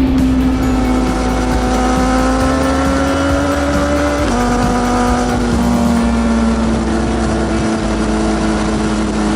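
Sport motorcycle engine running at speed, its pitch slowly climbing, then dropping suddenly about four seconds in as it shifts up a gear, then holding steady and easing off, over low wind rumble.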